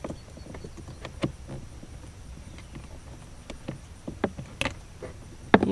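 Hard plastic cabin air filter cover of a Hyundai Santa Fe being pushed and fitted into its housing behind the glove box: a handful of light, irregular plastic clicks and taps.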